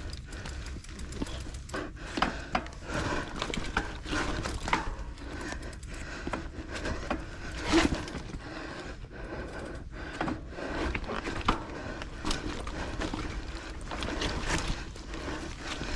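Mountain bike moving over a muddy dirt trail: irregular knocks, clicks and scrapes, over a steady low rumble on the microphone.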